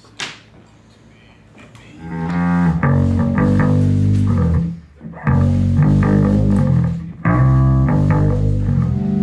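Amplified electric guitars playing loud sustained notes and chords, starting about two seconds in and pausing briefly twice, as the band sounds out its gear. A short sharp tap comes just before the playing.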